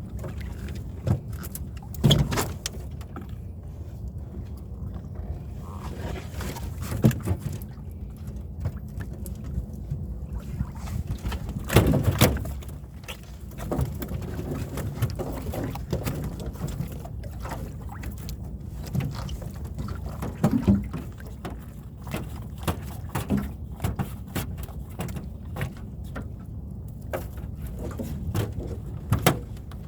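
Knocks and clatter in a small fishing boat on the water over a steady low rumble, with the sharpest knocks about 2, 7, 12 and 21 seconds in.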